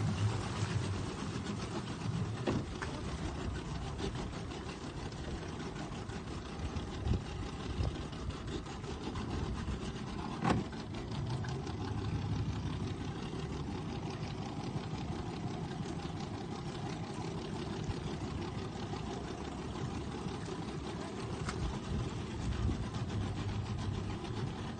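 Motorboat engine running steadily, heard from on board, with the wash of the wake and wind over it. A few sharp knocks stand out, the clearest about ten seconds in.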